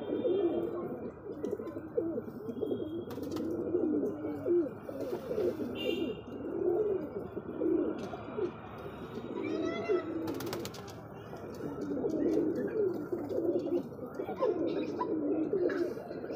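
Domestic pigeons cooing over and over in low, rolling calls, the courtship cooing of a cock bird puffed up and circling a hen. A few short, higher chirps come in about six and ten seconds in.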